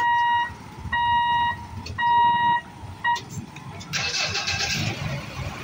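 Railway level-crossing warning buzzer beeping about once a second while the boom barriers lift, stopping about three seconds in, over the low running of motorcycle engines. A broad hiss starts about four seconds in as the motorcycles move off across the tracks.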